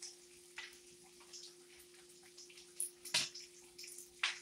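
Bacon and sausage frying in a pan, the grease crackling and popping in short irregular spits, with two sharper, louder pops about three and four seconds in. A steady low hum runs underneath.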